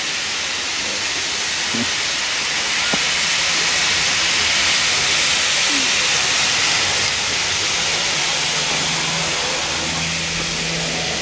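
Steam locomotive venting steam in a loud, steady hiss.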